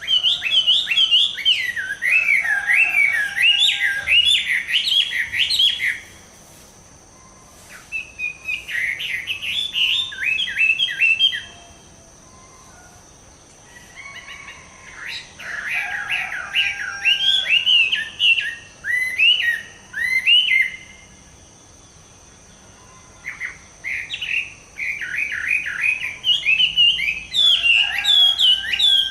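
Chinese hwamei (laughingthrush) in moult singing: four loud phrases of rapid, repeated rising and falling whistled notes, with short pauses between them.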